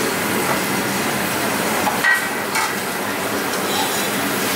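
Steady rushing noise from a commercial kitchen's gas range. About two seconds in comes one sharp metal clank with a brief ring, followed by a lighter knock, from pans or utensils on the range.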